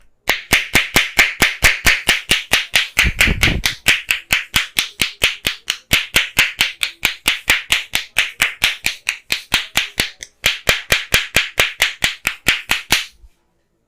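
Percussive head massage: a barber's hands striking the head in quick, even claps, about five a second, with a short pause near the end.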